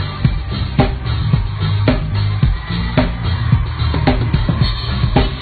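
Live pop band playing loud, a drum kit keeping a steady groove with a strong hit about once a second over a heavy bass.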